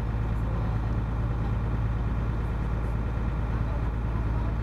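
Motorboat engine running steadily, a low even hum heard from on board.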